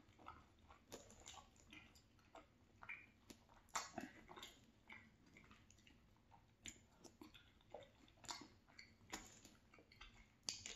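Faint, close-up chewing of gravy-soaked fries and melted cheese: soft, wet mouth clicks and smacks at irregular intervals.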